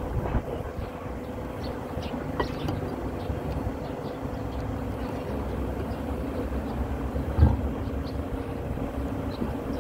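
Steady low background hum with a faint steady tone, small scattered clicks, and one thump about seven and a half seconds in.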